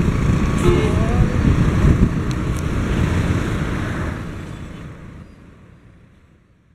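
City road traffic: a steady rumble of cars and trucks with wind on the microphone, fading out over the last two or three seconds.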